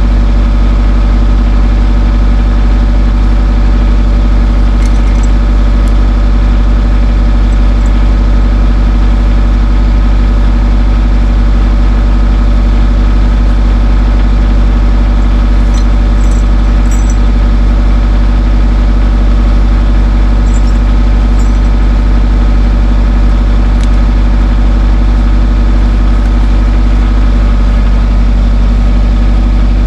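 Skid steer engine running at a steady, unchanging speed.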